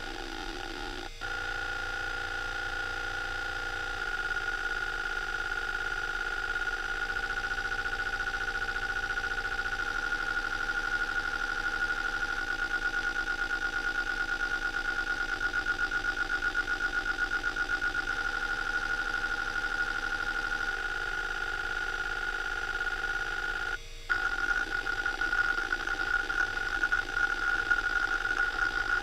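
Western Digital Caviar 21200 IDE hard drive spinning with a steady whine while its heads seek back and forth in repeating test patterns, the seek chatter changing its rhythm every few seconds. After a brief break about three quarters of the way in, the seeks turn irregular and louder as the heads jump to random positions.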